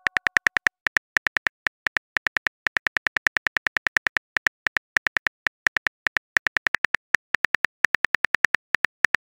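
Typing sound effect of a texting-story app: quick, irregular keyboard clicks, several a second with short pauses, as a message is typed out letter by letter.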